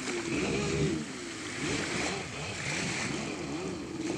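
Jet ski engine running with its pitch swinging up and down about twice a second, over a hiss of water spray.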